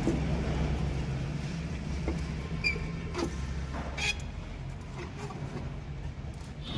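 Car engine idling with a steady low running sound and a few sharp clicks. The low running sound dies away about five and a half seconds in.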